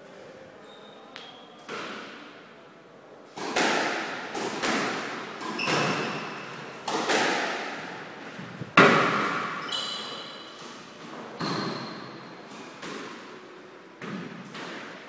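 Squash rally: the ball is struck by the rackets and smacks off the court walls about a dozen times, each hit echoing in the enclosed court, the loudest a little past the middle. A brief high shoe squeak on the wooden floor comes just after the loudest hit.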